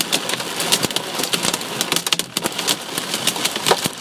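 Hail pelting a moving car's windshield and roof, a dense, irregular patter of clicks with one louder hit near the end. The hail is soft, turning to mush as it strikes the glass.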